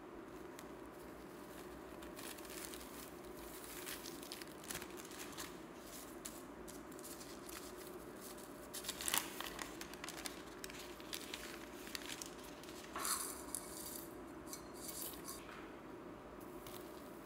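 Hands squishing and kneading slime, giving irregular soft crackles, squelches and little pops, loudest in two short bursts around the middle and about two-thirds of the way through.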